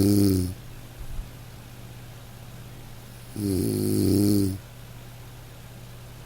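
Nasal snoring at an even pace: one snore trails off about half a second in, and another snore lasting about a second comes midway.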